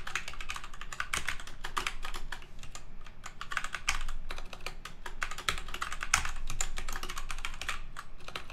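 Typing on a computer keyboard: quick runs of key clicks with brief pauses between them.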